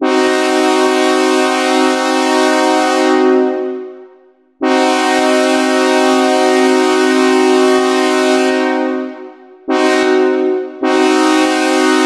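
A three-note chord played on the AudioKit Synth One software synthesizer with sawtooth oscillators, imitating a train's air horn. It sounds in blasts of long, long, short, long, the pattern of a grade-crossing horn signal, and each blast fades away over about a second when released.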